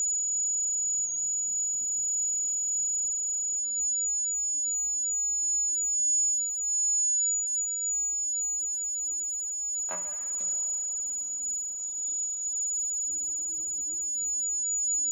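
Small buzzer of a homemade thermistor-and-transistor fire alarm circuit sounding one continuous high-pitched tone, the alarm set off. A single knock comes about ten seconds in.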